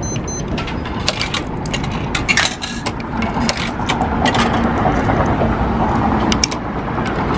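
Coins fed one after another into a Green P pay-and-display parking meter, each dropping through the slot with a sharp metallic click, over steady traffic noise.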